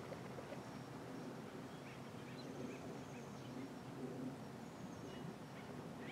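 Quiet outdoor ambience: a steady low background rumble, with a few faint, short chirps from small birds about two to three seconds in and one more near the end.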